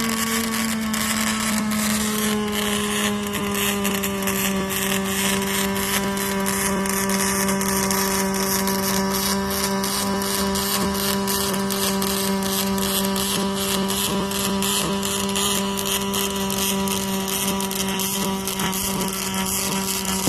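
Robotic arc welding: a steady buzzing hum with a dense, continuous crackle of the arc. The pitch settles slightly lower in the first two seconds, and the sound stops abruptly at the end.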